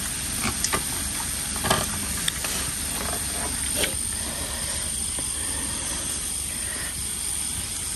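Meat and food sizzling steadily on a hot electric griddle, a constant frying hiss, with a few light clicks of utensils.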